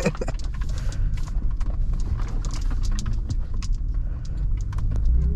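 Inside the cab of a 2020 Ford F-150 Raptor driving off-road over rough dirt: a steady low rumble from the truck, with irregular knocks and clatter a few times a second.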